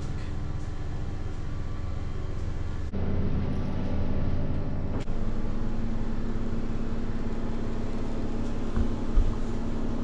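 Steady low droning hum with several held tones. It changes abruptly about three seconds in and again about five seconds in.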